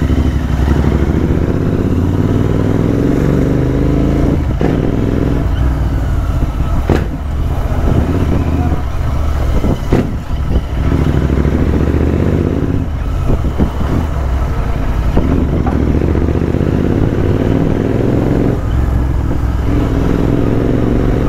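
Royal Enfield Interceptor 650's parallel-twin engine with an aftermarket exhaust, ridden under acceleration. The engine note climbs in pitch several times, dropping back in between.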